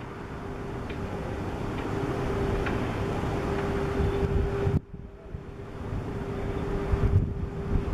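Mil Mi-8-family helicopter flying by: a low rotor rumble under a steady whine that grows louder. The sound drops away sharply almost five seconds in, then builds again.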